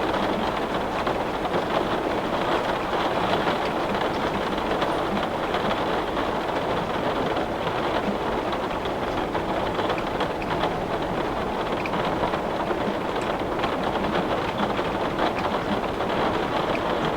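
Heavy rain pouring steadily on window glass, a dense even hiss with faint scattered taps.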